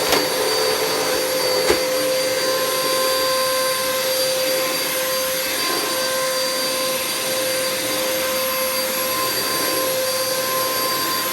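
Hoover Nano Cyclonic UH20020 upright vacuum running steadily with its brushroll switched off: a loud, even motor whine over the rush of air. There is a sharp click about two seconds in.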